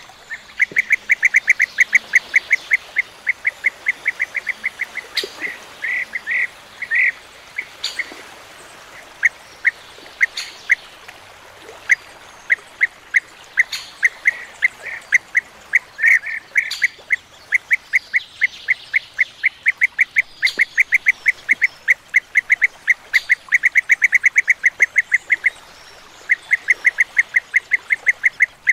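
European bee-eaters calling: long runs of short, rolling notes repeated several times a second, broken by a few longer, louder notes.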